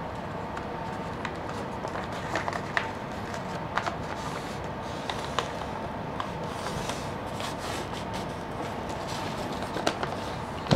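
A sheet of A4 paper being folded and creased flat by hand, giving scattered short paper crackles and taps over a steady background hum.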